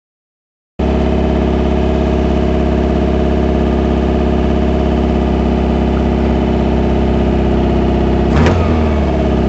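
Dune buggy engine idling steadily, heard from on board, with a short sudden louder sound about eight seconds in.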